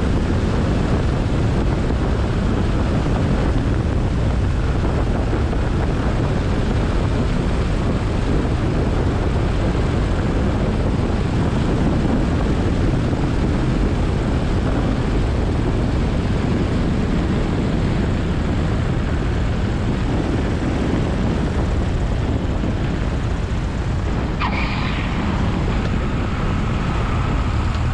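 Steady cabin drone of a Cessna 172SP in flight: its four-cylinder Lycoming engine and propeller running at a constant setting. A brief click sounds near the end.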